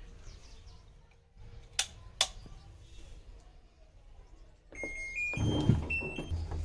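Two sharp clicks, then the top-loading washing machine's control panel plays a short run of electronic beeps at several different pitches as its power and start buttons are pressed. A low, uneven rumble starts just after the beeps, near the end.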